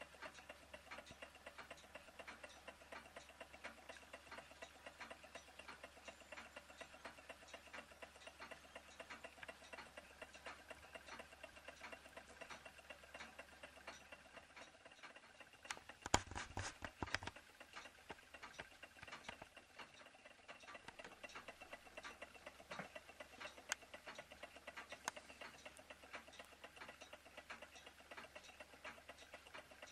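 Small model Stirling engines running, their mechanisms making a faint, rapid, even ticking. A brief clatter of louder knocks comes about halfway through.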